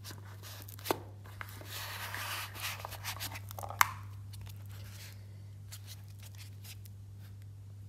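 Handling noise as a wristwatch on its foam pillow is pulled out of its presentation box: rustling and scraping for a couple of seconds, with a sharp click about a second in and a louder one just before four seconds, then a few faint ticks. A steady low hum runs underneath.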